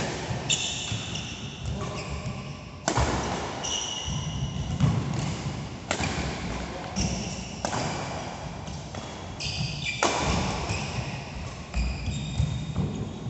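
Badminton rally: sharp racket strikes on the shuttlecock every second or two, with short high squeaks of players' shoes on the synthetic court mat in between.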